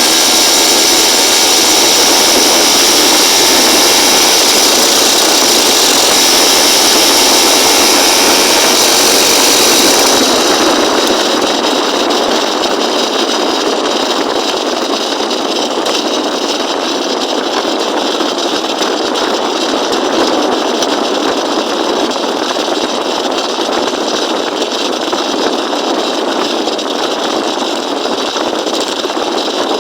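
Motorized bicycle's small engine running steadily. About ten seconds in the strong high hiss falls away and the engine goes on a little quieter.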